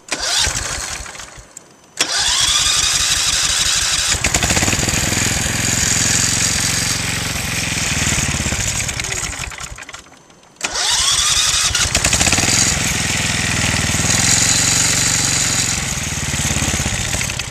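Small old tractor engine being started twice: each attempt opens suddenly with a rising whine and a fast, even beat that runs for several seconds, then winds down and stops.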